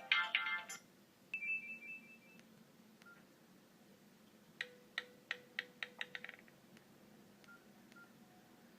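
Nokia N96 ringtone ending abruptly within the first second, followed by quiet short phone tones: a brief high two-note beep, then about a second later a quick run of about eight sharp notes over a low held tone, and a few faint blips near the end.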